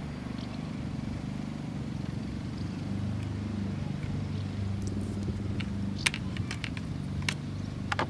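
Sharp plastic clicks and taps, a handful from about five seconds in, as a blue plastic drive bracket is pressed onto a 2.5-inch SSD, over a steady low hum.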